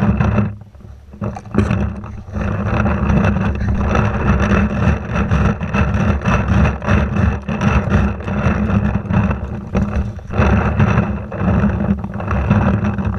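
Wind and handling noise on a body-worn camera's microphone while the wearer moves fast on foot, with irregular knocks from footfalls and gear jostling.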